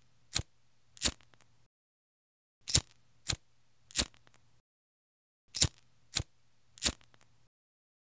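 Disposable cigarette lighter being flicked again and again: sharp clicks in sets of three, about two-thirds of a second apart, with the sets about three seconds apart.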